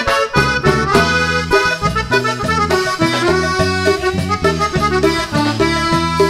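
Live band playing an accordion-led instrumental passage over a steady bass beat.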